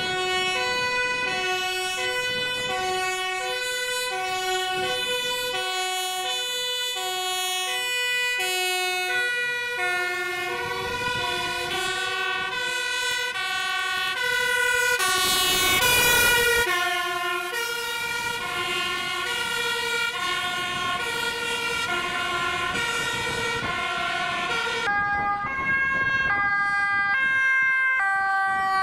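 Two-tone sirens of Dutch emergency vehicles, more than one at once, alternating high and low notes. A rush of road noise swells as a vehicle passes close about halfway through, and a different siren pattern takes over near the end.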